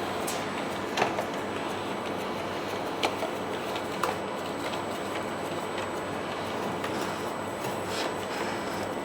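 CHUWI ILIFE V7S robot vacuum cleaner running with a steady whir and hum, with a few sharp knocks about a second in and again around three and four seconds.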